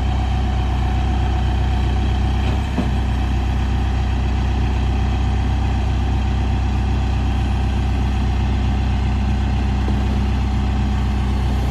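Case 580 Super N backhoe loader's diesel engine running steadily at a constant speed, with a brief dip about three seconds in.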